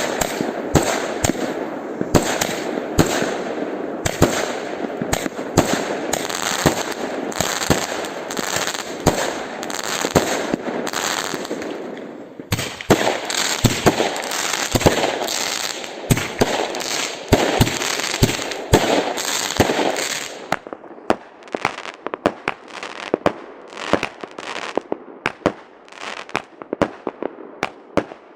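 Fireworks going off: a dense barrage of bangs over continuous crackling, thinning about twenty seconds in to separate bangs roughly every half second.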